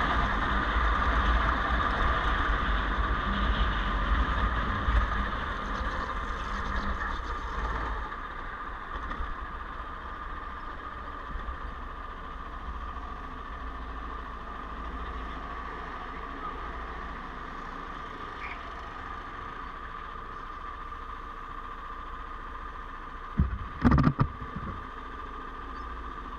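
Go-kart engine running under way, then dropping to a steady idle drone about eight seconds in as the kart comes to a stop. A few loud thumps come close together near the end.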